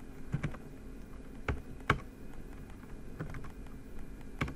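Computer keyboard typing: a handful of separate keystrokes spread unevenly, the sharpest click about two seconds in, as single-letter commands are entered.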